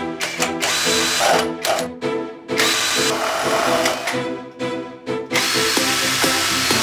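Power drill running in three long bursts over background music.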